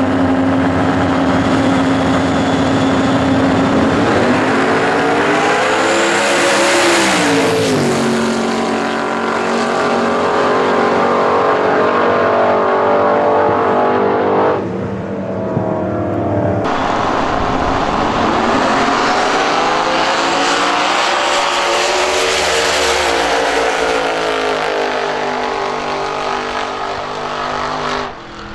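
Twin-turbo V8 engine of a drag-racing Ford Cortina holding steady revs on the start line, then launching and running at full throttle, its engine note sweeping up and down. About halfway through, the sound changes abruptly, and loud engine noise carries on rising and falling.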